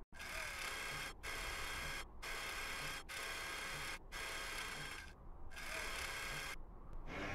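Whirring motor sound effects for a Mars rover's robotic arm and mast. The sound cuts out briefly about once a second, then breaks off for longer twice near the end.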